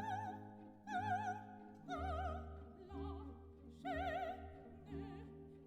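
Operatic-style background music: a high line with wide vibrato sings held notes, a new one about every second, over sustained lower accompaniment.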